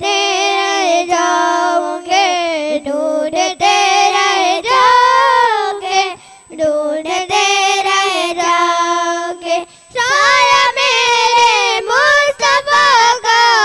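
Young girls singing a naat, a devotional song in praise of the Prophet, unaccompanied, in long held phrases with short breaks between them.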